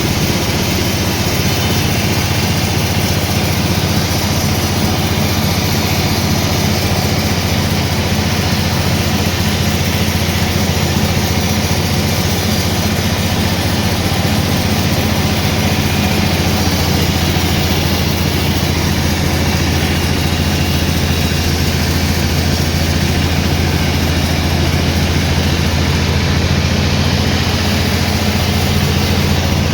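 Sawmill machinery running steadily: a constant low drone with a steady hiss above it.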